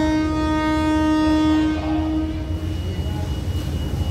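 Air horn of the Hitachi 4516 diesel-electric locomotive held on one steady note, cutting off about two seconds in. A low rumble of the train continues underneath.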